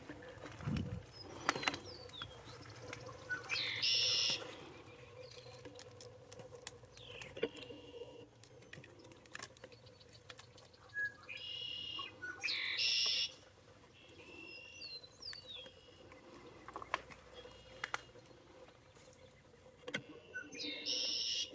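Small birds chirping, with three louder high-pitched bursts of song spread through, among scattered light clicks.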